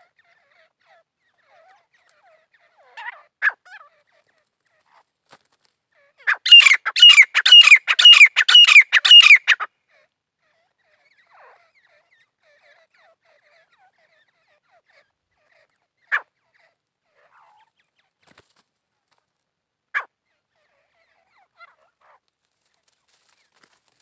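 Grey francolin calling: a loud, rapid series of about ten repeated ringing notes lasting around three seconds, with a few short single calls before and after.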